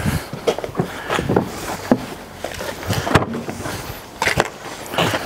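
Footsteps on gravel with an irregular string of sharp knocks and clatter as things are handled at a pickup truck's open tailgate.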